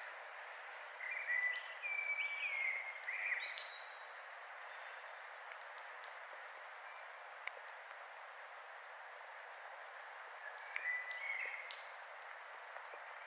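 Campfire crackling: scattered sharp pops over a steady hiss. An animal calls with short whistled notes, once about a second in and again near the end.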